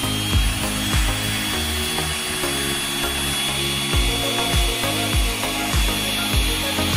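Homemade drill powered by a 775 DC motor, running at speed with a steady high whine, over background music with a steady beat.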